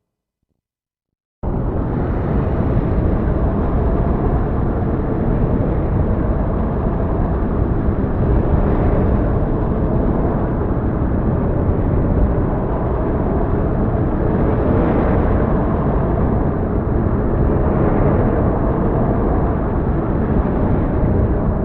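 Heavy storm ambience: a dense, steady low roar that starts abruptly after about a second and a half of silence, with faint swells here and there.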